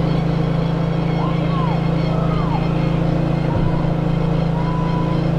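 A steady low motor hum, with a few faint distant shouts about one and two seconds in.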